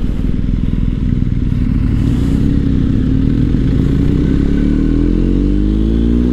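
BMW R1250 GS's 1254 cc boxer-twin engine pulling hard in second gear. Its pitch climbs steadily through the second half as the bike accelerates.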